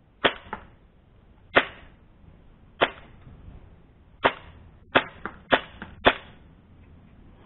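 HFC MAC-10 (M11) gas-blowback airsoft replica firing in semi-automatic with a suppressor fitted: seven sharp shots, widely spaced at first and quicker toward the end, some followed by a fainter click.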